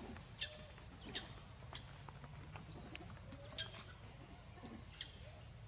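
Young monkey giving short, high-pitched squeaks, each dropping sharply in pitch, about five of them spread across a few seconds.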